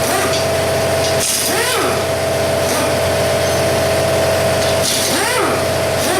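An electric shop air compressor runs steadily with a loud, constant hum. Twice, a short pitched squeak rises and falls over it.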